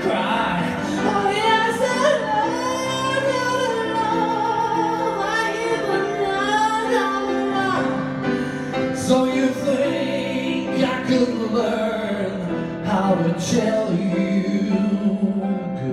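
A singing voice with musical accompaniment, holding long notes with vibrato.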